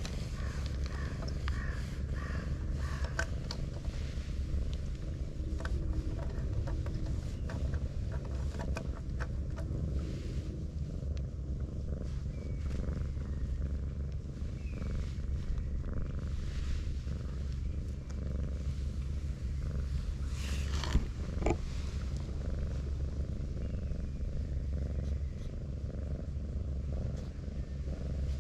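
Domestic cat purring steadily while being stroked. Two sharp clicks sound about two-thirds of the way through.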